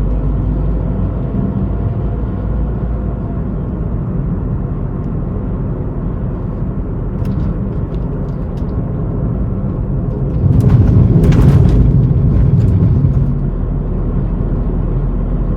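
Tata Tigor's three-cylinder petrol engine and road noise heard inside the cabin while the car is driven, a steady low drone. About ten seconds in, a louder rush of noise swells for a couple of seconds and then fades.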